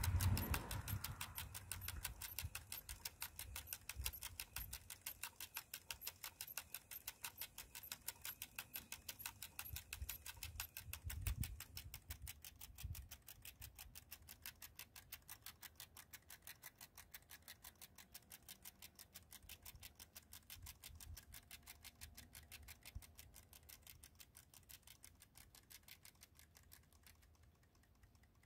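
Hasler Bern railway speedometer-recorder rig with its tachogenerator spinning down: a low motor rumble dies away in the first couple of seconds. Fast, even mechanical ticking follows, fading steadily and stopping shortly before the end as the speed reading falls to zero.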